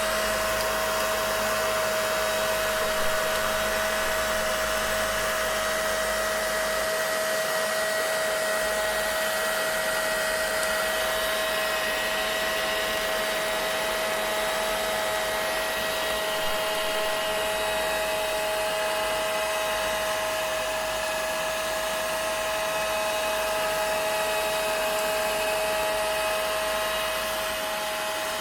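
Vacuum cleaner running continuously: an even rushing-air hiss with a steady motor whine, holding the same pitch and level throughout.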